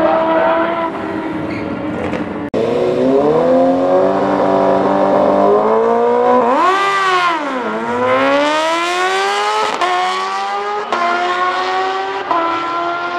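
Kawasaki sport-bike inline-four engines at a drag strip: a steady engine drone, a sharp rev that rises and falls around the staging line, then an engine pulling hard with its pitch climbing and dropping back at several upshifts.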